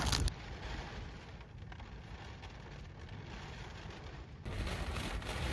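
Heavy rain and wind on a parked car, heard from inside the cabin as a low, steady rumbling hiss. A short clatter comes right at the start, and about four and a half seconds in the hiss turns brighter and louder.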